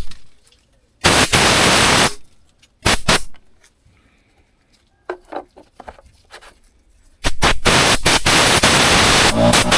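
Loud bursts of even rushing, hiss-like noise: one about a second long near the start, a short one a couple of seconds later, and a longer one from about seven seconds in. Between them are quiet stretches with a few faint clicks.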